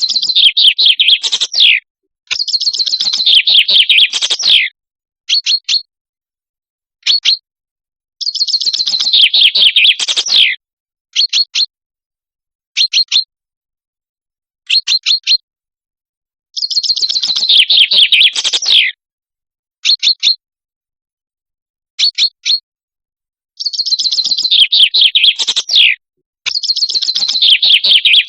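Common chaffinch song: about six phrases, each a roughly two-second run of trilled notes falling in pitch and ending in a flourish, with short sharp call notes, singly or in pairs, in the gaps between.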